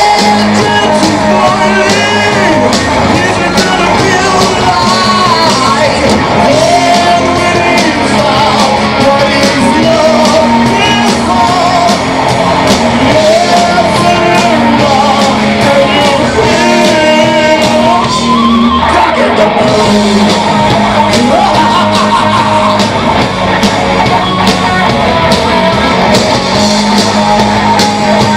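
Live rock band playing loud, a male lead singer over drums, bass guitar and electric guitar.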